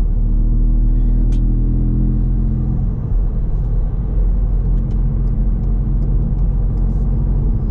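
Ford Fiesta ST Mk8's 1.5-litre three-cylinder turbo engine and its Scorpion valved cat-back exhaust with GPF delete, heard from inside the cabin while cruising. A steady engine drone sits over road rumble, clearest for the first three seconds and then sinking into the rumble.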